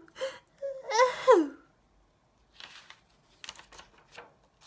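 A woman giving the flea's little cough in a story reading, a voiced throat-clearing 'ahem'-like sound made twice, each falling in pitch, within the first second and a half. Faint clicks and rustles follow.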